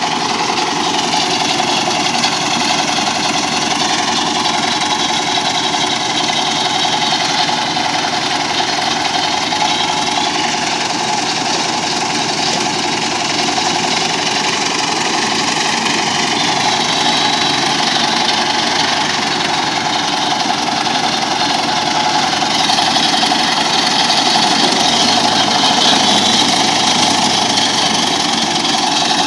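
An engine running steadily at an even speed, with a high whine above it that wavers slightly in pitch.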